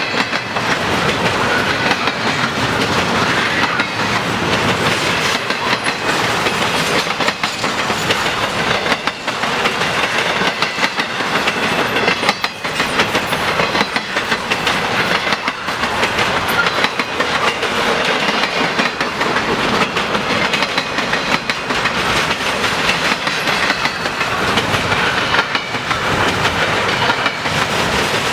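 Intermodal freight cars of a long train rolling past, a steady rumble and rattle with repeated clicks of wheels over the rail joints.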